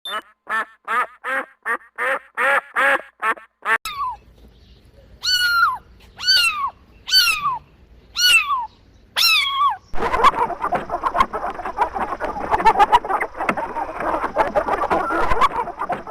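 Ducks calling. First comes a quick run of about eight short quacks, then five single calls that each fall in pitch. About ten seconds in, many birds start calling over one another at once, like a flock.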